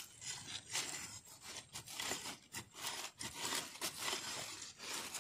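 A bare hand scraping and brushing through dry, crumbly soil to uncover a sweet potato tuber: an irregular run of short scratchy rustles.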